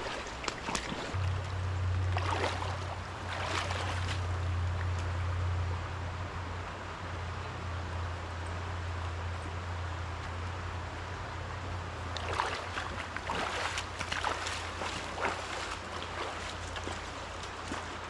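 A river running over rocks, with the sloshing splashes of someone wading upstream through it, a few near the start and more about twelve seconds in. A steady low rumble sits under the water for most of the first twelve seconds.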